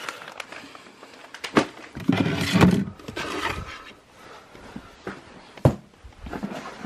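Horse gear and other items being pulled off locker shelves and dropped on the floor: rustling and scraping of fabric and packaging, with two sharp knocks.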